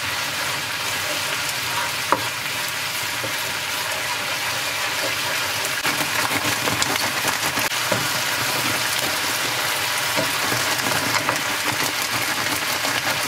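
Jjajang sauce (vegetables in oil with chunjang black bean paste) sizzling steadily as it is stir-fried in a pan, with occasional clicks of the stirring utensil against the pan.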